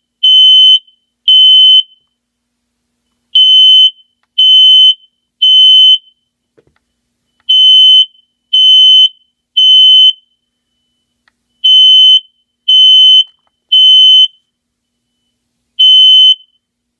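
Hardwired smoke alarm sounding under test: loud, high-pitched beeps in the temporal-three pattern, three half-second beeps then a pause of about a second and a half, repeating. It stops after a single beep of the last round, near the end.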